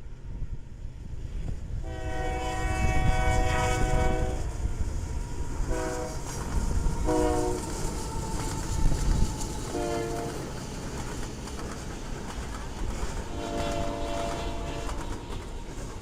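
Locomotive air horn sounding a chord in five blasts: one long, three short, then another long, over the low rumble of a moving train.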